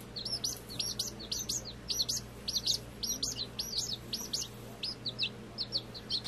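Week-old chicks peeping: a continuous run of short, high chirps, several a second, thinning a little near the end.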